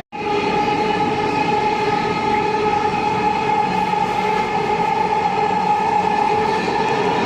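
Metro train running at a steady speed: an even whine of several steady tones over a rumbling wheel-on-rail noise.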